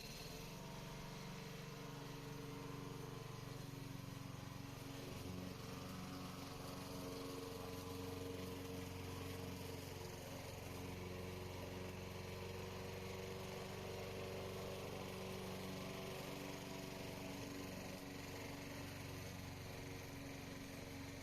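Radio-controlled lawn mower's engine running steadily, a constant hum with no revving.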